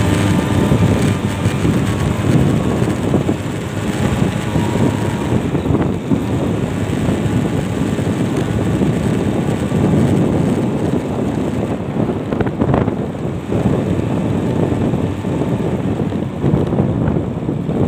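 Wind buffeting the microphone of a phone held by a rider on a moving motorcycle: a loud, rough rumble.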